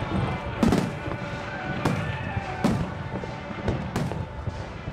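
Firework shells bursting, about four sharp bangs each followed by a low rumbling echo, over music played for a fireworks show set to music.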